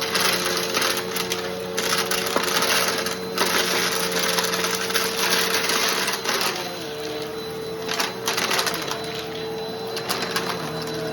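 Bissell PowerForce Helix Turbo Rewind Pet upright vacuum running with a steady motor whine while it sucks up crunchy debris, which rattles and crackles through the nozzle and hose in long bursts. The crackling eases off after about six and a half seconds and comes back briefly around eight seconds.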